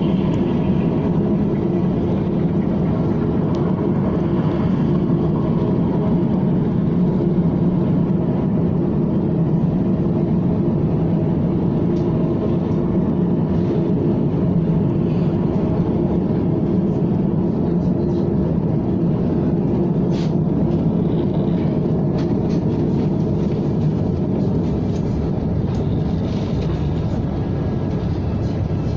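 KTM ETS electric train running steadily: a constant rumble with a low hum and a few faint clicks.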